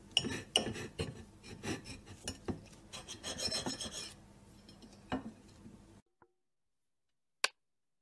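Large knife cutting on a wooden cutting board: a quick, irregular run of knocks and scrapes as the blade slices through small pieces of food and hits the board. It cuts off about six seconds in, with one more sharp click near the end.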